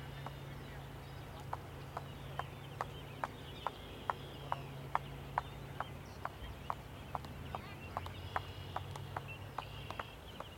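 A steady train of short, sharp clicks or taps, a little over two a second, starting about a second and a half in and stopping near the end.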